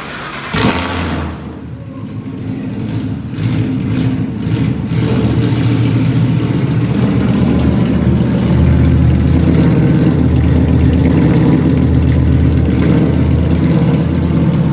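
Ford Mustang GT's 5.0 Coyote V8 starting on a Carven race X-pipe with dumps (essentially no exhaust). It catches about half a second in and settles into a loud, steady idle that builds up over the first few seconds. The engine is warm-ish rather than fully cold.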